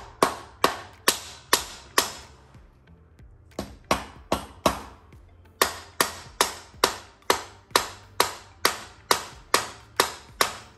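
Hammer tapping bolts through the mounts of a hot-rod I-beam front axle: sharp, ringing metal-on-metal strikes at about two a second, in three runs with short pauses, the longest run near the end.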